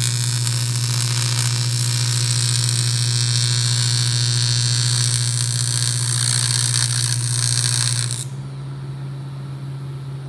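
TIG welding arc buzzing steadily with a hissing edge as a tube joint is welded. The arc cuts off about eight seconds in, leaving a quieter low hum from the welder.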